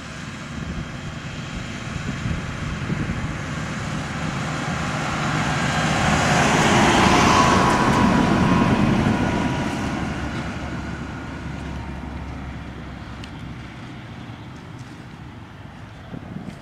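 Claas Jaguar self-propelled forage harvester driving past, its engine and chopping gear growing louder to a peak about halfway through and then fading away, with a faint whine over the engine noise.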